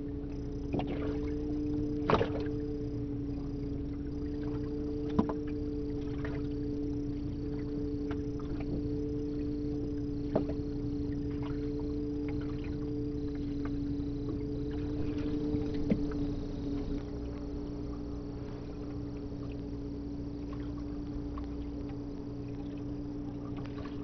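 A small aluminium boat under way, its motor holding a steady two-note hum over a low rumble, which eases slightly about two-thirds of the way through. A few sharp knocks stand out above the hum.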